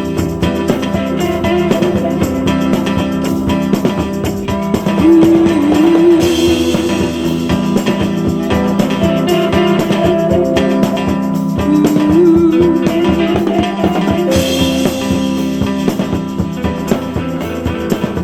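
Rock music with electric guitar and a drum kit. There are bent, wavering guitar notes, and it swells louder with cymbals about six seconds in and again near fourteen seconds.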